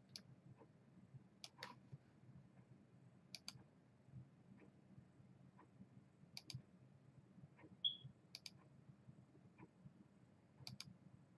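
Faint computer mouse clicks, mostly in quick pairs every second or two, over a low steady hum, with one brief high chirp about eight seconds in.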